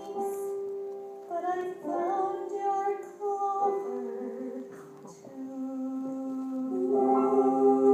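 A female singer holding long notes over a keyboard accompaniment, building into a long sustained chord that swells near the end.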